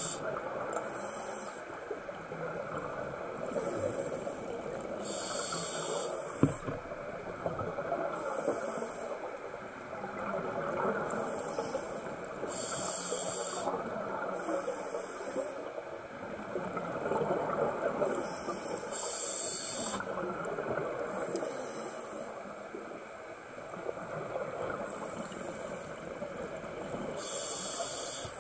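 Scuba regulator breathing heard underwater: a hiss from the demand valve about every six to seven seconds, over steady bubbling from exhaled air. A single sharp knock about six seconds in.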